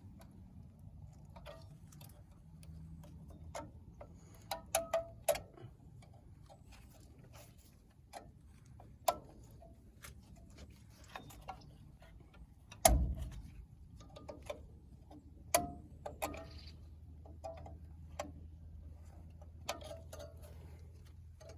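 Scattered metallic clicks, clinks and knocks of hand tools working on rear drum brake hardware, with a quick run of clicks around five seconds in and a heavier knock about thirteen seconds in.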